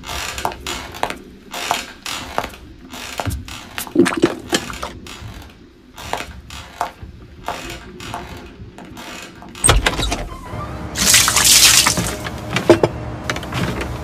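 Water sound effects: irregular drips and small splashes, then a low thump and, shortly after, a brief loud rush of pouring or splashing water, followed by a few more drips.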